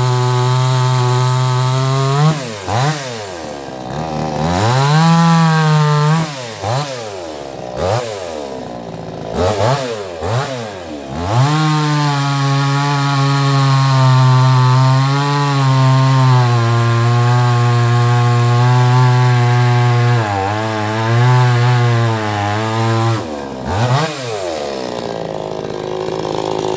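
Huyosen gas chainsaw running at high revs while cutting logs, its engine note dropping and climbing back several times between about two and twelve seconds in, then holding steady for a long stretch before a few more dips near the end.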